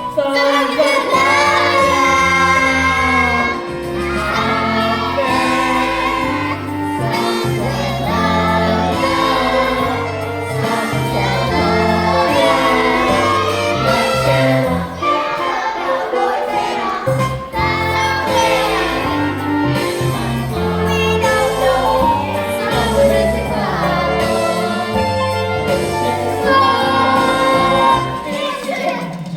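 Young voices singing a musical-theatre number over instrumental accompaniment, with a bass line moving in steps beneath the melody.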